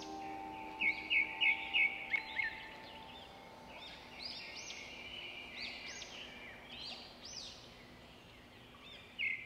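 Several birds chirping and calling, with a quick run of four loud repeated notes about a second in and another burst of calls near the end.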